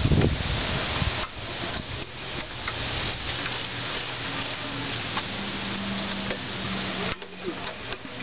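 Lawnmower's Honda engine slowly cranked over by its recoil starter cord with the spark plug out, spreading fogging oil over the cylinder; a loud pull near the start, then a steady hiss with a few faint knocks.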